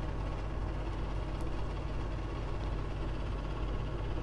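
Steady low hum with a faint even hiss, and a couple of faint short ticks.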